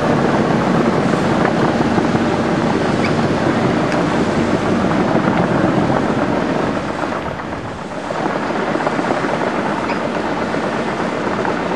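Diesel engines of two tracked hydraulic excavators working in a cutting, a steady heavy drone that dips briefly about seven seconds in, then picks up again.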